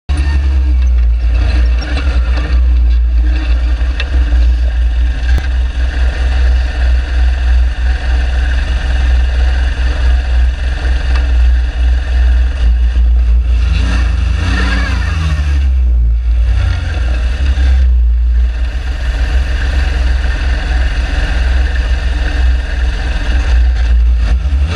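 Dune buggy engine running as it drives across sand, under a heavy low rumble, with the engine revving up and back down a little past halfway.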